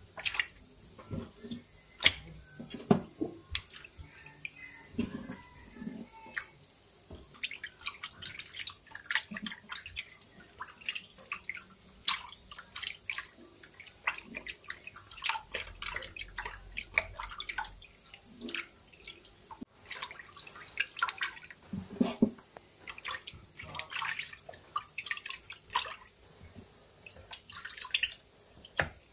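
Water splashing and dripping in a plastic basin as hands rub and turn a whole raw chicken in it, in irregular wet splashes.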